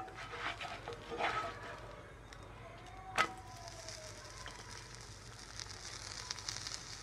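Scallion pancake frying on low heat in a cast-iron skillet. A few spatula scrapes and taps against the pan come in the first second and a half, and a sharp click about three seconds in. After that comes a steady faint sizzle.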